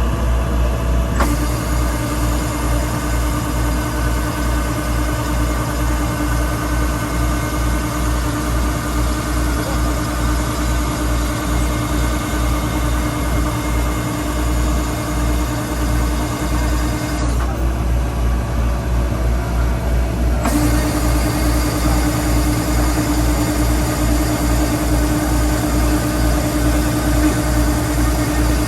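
Rice combine harvester running steadily, its engine giving a low continuous throb, with a steady whine over it that drops out for about three seconds in the middle and then returns.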